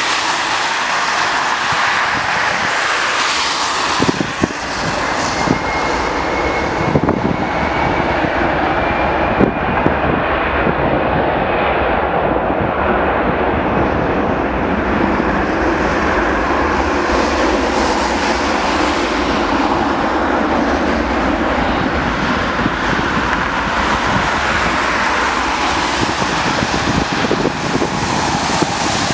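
The Fokker 70's two rear-mounted Rolls-Royce Tay turbofans run at takeoff power during the takeoff roll: a loud, steady jet rush. A thin whine rises slowly in pitch from about five seconds in as the engines spool up.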